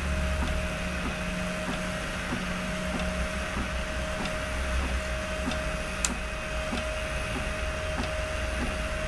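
FDM 3D printer printing PLA: its stepper motors and hot-end carriage run with a steady whine over a low hum, and faint ticks come at irregular intervals. One sharper click comes about six seconds in.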